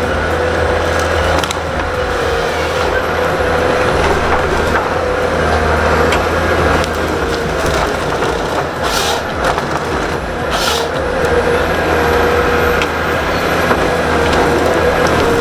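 Heavy machinery running steadily with a low drone and a whine, with two short hisses about nine and eleven seconds in.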